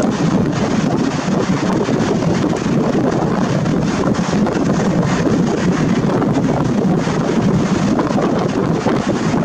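Wind blowing across the Nikon Coolpix P900's built-in microphone: a loud, steady rush with no breaks.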